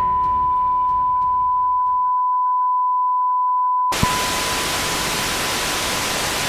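A steady test-card beep tone sounds over end music that fades out beneath it. About four seconds in, loud TV static hiss cuts in abruptly with a click, the beep still faintly audible under it.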